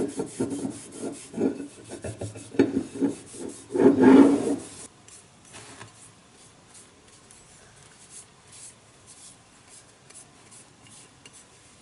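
Quick, irregular back-and-forth rubbing strokes on a metal part of an old No. 4 hand plane, loudest about four seconds in and stopping about a second later. After that come only faint small clicks as the parts are handled.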